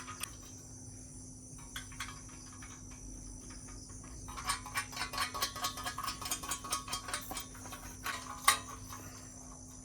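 Metal nuts and bolts clicking and rattling as the parts of a sewing machine stand are fitted and tightened by hand, in a quick run of small clicks from about halfway through, ending in one sharp knock. Crickets chirp steadily behind it.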